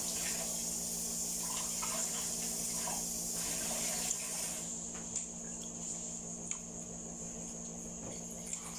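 A person chewing a chewy glutinous-rice mochi with the mouth close to the microphone, a few faint mouth sounds in the first seconds, over a steady low hum and hiss.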